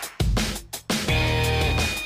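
Electronic background music with a heavy beat and deep bass notes.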